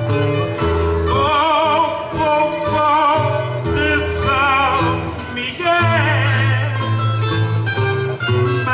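A man singing a verse of a Portuguese cantoria ao desafio with a wide vibrato, over an acoustic guitar and Portuguese guitars playing a steady plucked accompaniment.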